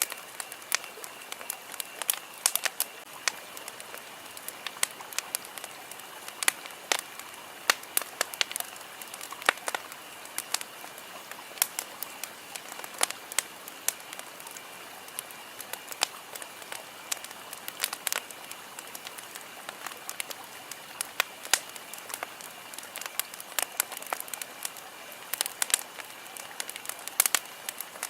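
Campfire crackling: irregular sharp pops and snaps, sometimes several in quick succession, over a steady hiss.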